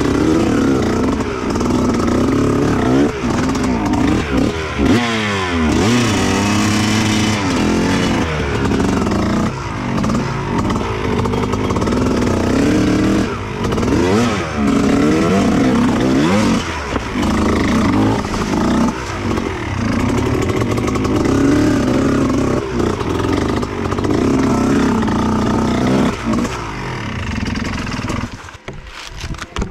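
Two-stroke Kawasaki Ninja 150 motorcycle engine in a dirt-bike build, revving up and down over and over as it is ridden, its pitch rising and falling with the throttle and gear changes. The engine is fresh from a rebuild. Near the end it drops back and gets quieter.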